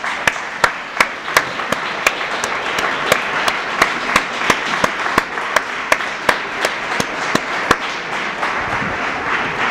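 Audience applauding, with one clapper close by keeping a steady beat of about three claps a second that stops near the end while the general applause carries on.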